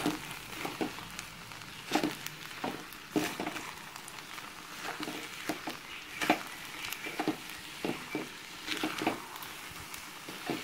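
Wooden spatula stirring a thick, sticky broken-wheat and sugar mixture in an aluminium pot, with irregular scrapes and knocks against the pot, over a faint sizzle from the pot on the heat.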